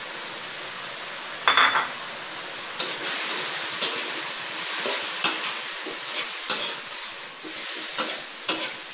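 Snow peas and Chinese celery sizzling in a hot wok while a metal spatula stirs and tosses them, scraping and knocking against the pan. There is a single ringing clank about a second and a half in. From about three seconds the sizzle gets louder, with repeated spatula knocks.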